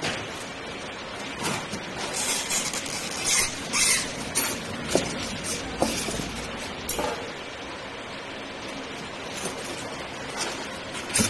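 Scattered clinks and light knocks of small metal parts and tools being handled, busier in the first half and with one sharper knock near the end, over a steady background hiss.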